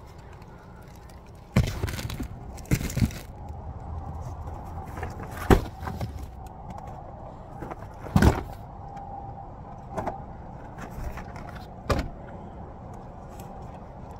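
Cardboard cases of snacks and canned drinks being handled and set onto a car's back seat: a series of separate knocks and thumps a couple of seconds apart, the loudest about eight seconds in, over a faint steady hum.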